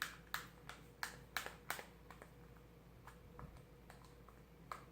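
Homemade slime being worked by hand, giving sharp little clicks and pops, about five in the first two seconds, then fewer and fainter.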